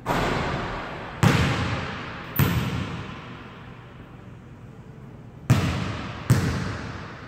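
A basketball strikes the rim, then bounces twice on a hardwood gym floor, about a second and two and a half seconds in. Near the end come two dribbles about a second apart. Each impact rings on with a long echo from the hall.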